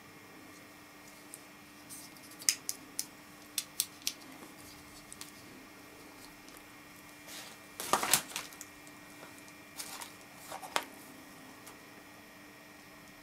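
Handling noise from a small solar panel's lead, DC plug and alligator clips as they are sorted by hand: scattered light clicks and taps, with a short, louder crackling rustle about eight seconds in.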